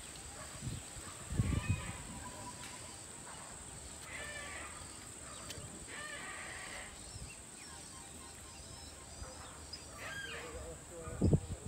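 Quiet rural field ambience: scattered short bird calls a few seconds apart over a steady high-pitched hiss, with a faint low voice about a second and a half in.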